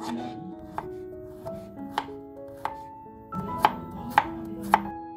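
Kitchen knife slicing shallots and garlic on a wooden cutting board: sharp, irregular knocks of the blade hitting the board, about seven of them, with the loudest three coming quickly one after another in the second half. Soft background music with held notes plays underneath.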